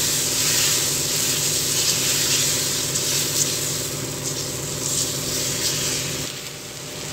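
Wheat rava dosa batter sizzling on a hot dosa tawa as it is spread in circles with a ladle, over a steady low hum that drops away about six seconds in.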